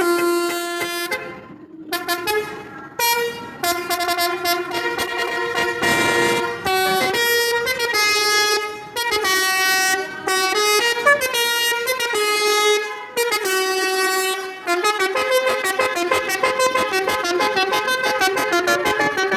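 Basuri telolet multi-tone air horn with roof-mounted trumpets on a pickup truck, playing a tune of loud changing notes. There is a brief break about a second and a half in, and a run of quick repeated toots over the last few seconds.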